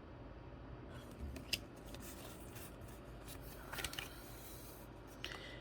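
Faint crinkling and rubbing of a Pokémon card booster pack being opened and its cards handled, with a few soft clicks.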